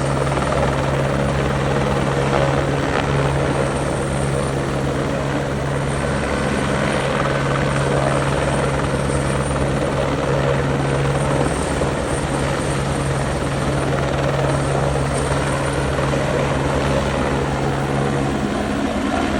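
Helicopter running steadily overhead: a constant engine drone with the rotor beating, unchanging in level throughout.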